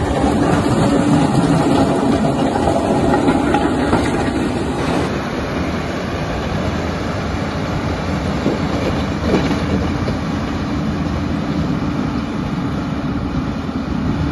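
Diesel engine of an XCMG GR2605 mining motor grader running steadily under load as it grades the dirt road with its blade down. It eases a little after about five seconds as the grader moves off.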